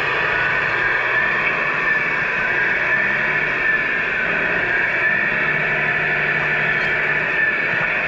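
1/14 scale radio-controlled semi trucks running: a steady mechanical whir with a faint whine that wavers in pitch.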